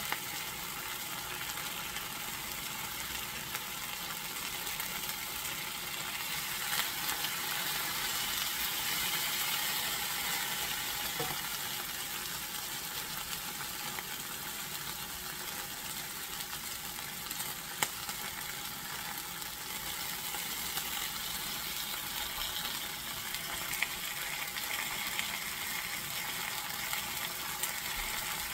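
Steaks searing in oil in an enameled cast-iron skillet: a steady sizzle, with a few short clicks now and then.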